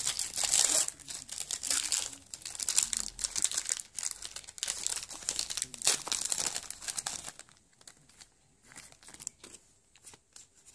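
Foil trading-card pack wrapper being torn open and crinkled by hand, a dense crackling that lasts about seven seconds. It then gives way to lighter, scattered clicks as the cards are handled.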